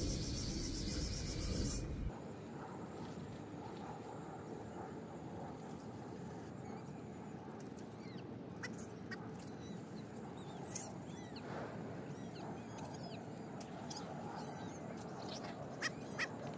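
Stray cats meowing now and then over a quiet outdoor background, after about two seconds of louder rustling noise at the start.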